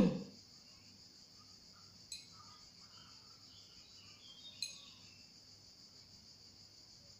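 Quiet room with a steady high-pitched hiss. Two faint clicks come about two seconds and four and a half seconds in, as candy pearls are picked off a ceramic plate.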